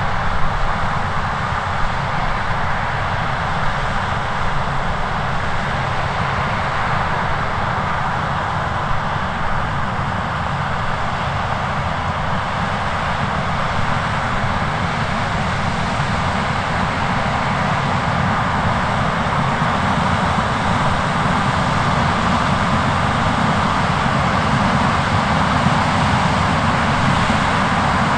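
John Deere S780 combine harvesting corn with a 16-row chopping corn head while unloading into a grain cart pulled by a tractor alongside: a steady drone of engines and machinery, growing slightly louder toward the end.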